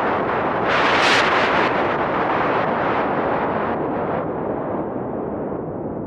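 ARP Odyssey analog synthesizer playing a wind effect of filtered noise. A gust swells about a second in, then the sound grows darker and fades as the high end closes down.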